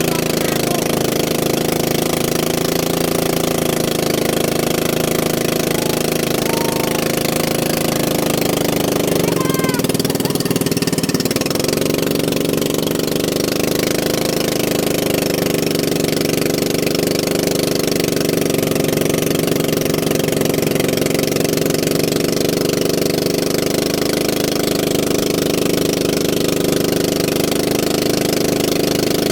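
Small boat engine running steadily at a constant speed, a continuous rattling drone.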